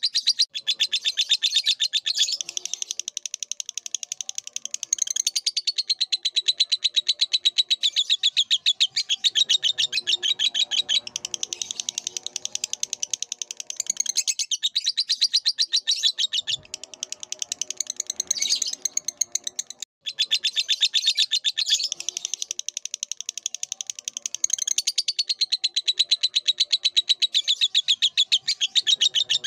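Lovebird singing: a long, rapid, unbroken chatter of high chirps and trills, with now and then a drawn-out whistle. It breaks off for a moment about two-thirds of the way through, then carries on.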